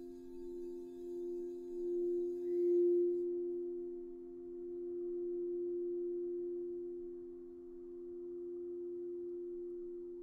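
Crystal singing bowls ringing in two steady low tones with fainter overtones above. The sound swells and eases slowly, peaking about three seconds in, while a faint high shimmer above stops at about the same point.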